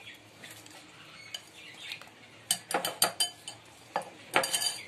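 Wire whisk beating egg with soaked soya chunks in a glass mixing bowl: soft wet stirring at first, then, about halfway through, a run of sharp clinks as the wires strike the glass.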